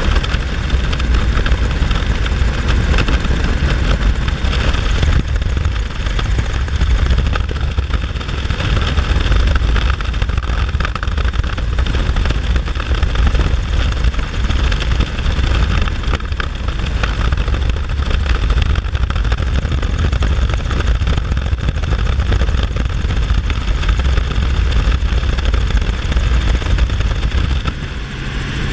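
Helicopter engine and rotor drone from inside the cabin in flight, loud and steady, mixed with wind rushing through the cabin.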